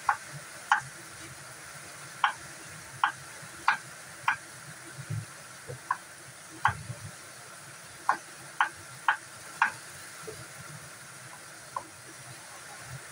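Kitchen knife cutting potatoes on a wooden chopping board: about a dozen sharp taps at an uneven pace as the blade goes through each piece and strikes the board. A steady hiss sits underneath.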